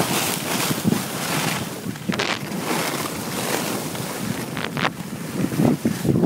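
Wind buffeting a phone microphone while skiing downhill, mixed with the hiss and scrape of skis on snow. Sharper scrapes come about two seconds in and twice just before five seconds.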